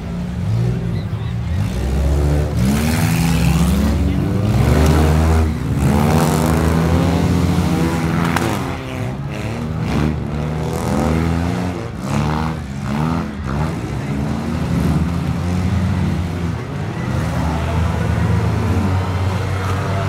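A pack of small race cars' engines revving together, steady for the first couple of seconds, then pulling away and rising and falling in pitch again and again as the cars accelerate and back off around a dirt figure-8 track.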